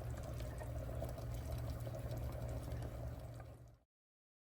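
A steady low motor hum that fades out about three and a half seconds in, then gives way to dead silence.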